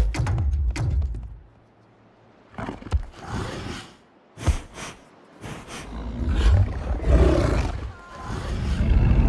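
Film sound effects of a giant wolf: a heavy low rumble that fades to near quiet, a few sharp hits, then low growling and roaring building again.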